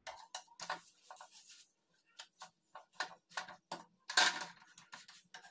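Irregular light clicks and knocks, about two a second, from a paratha being handled and turned on a flat tawa over a gas burner, with a longer scrape about four seconds in.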